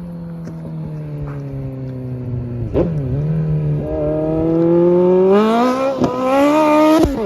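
Suzuki Bandit 1250's inline-four engine accelerating under riding: the note drops, dips once a few seconds in, then climbs steadily, broken twice near the end by quick drops in pitch at gear changes.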